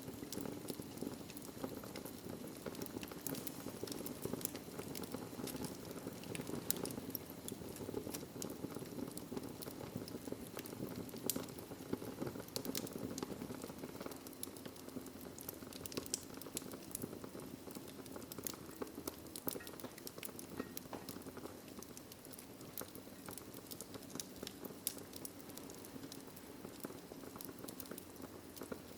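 Wood fire in a fireplace crackling, with frequent sharp pops and snaps over a steady low rush of burning; a few louder pops stand out.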